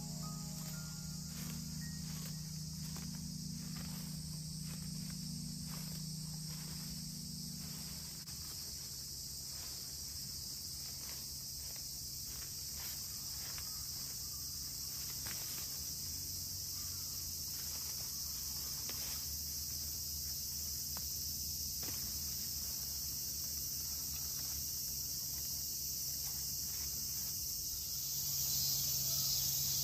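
Steady high-pitched drone of a summer insect chorus, growing louder near the end, with faint irregular ticks and rustles beneath it.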